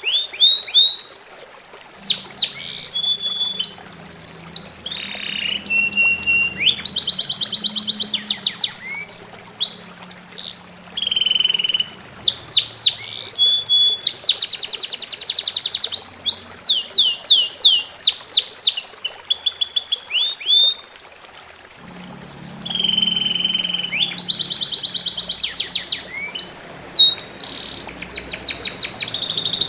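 Songbird singing a fast, varied song: runs of sharp downward-sweeping whistles, rapid trills and buzzy notes, with a brief pause about two seconds in and another about three-quarters of the way through.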